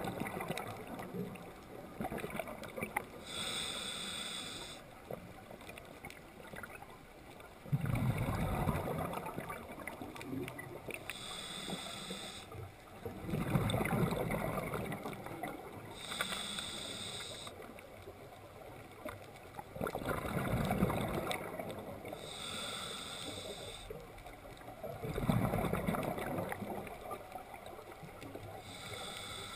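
Scuba diver breathing through a regulator underwater, in a slow repeating cycle of about six seconds. Each cycle has a short hissing inhale through the demand valve and then a longer rumbling rush of exhaled bubbles.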